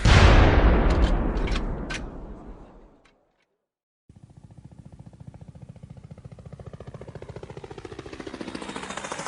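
War sound effect: a heavy explosion boom that dies away over about three seconds, with a few sharp cracks in its tail. After a second of silence, a fast, even pulsing rumble starts and slowly grows louder.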